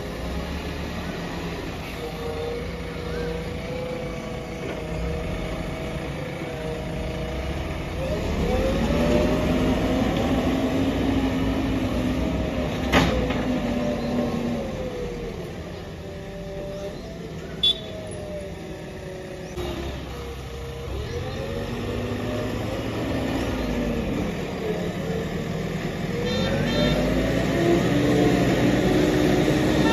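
JCB 3DX backhoe loader's diesel engine running and revving up and down several times as the machine manoeuvres. A sharp click comes about 13 seconds in and another near 18 seconds.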